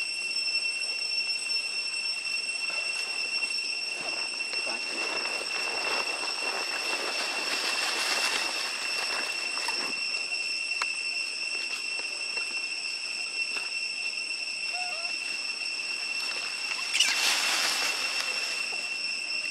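Steady high-pitched insect drone, with leaves and twigs rustling as a young macaque moves through the branches. A louder rush of shaken leaves comes near the end.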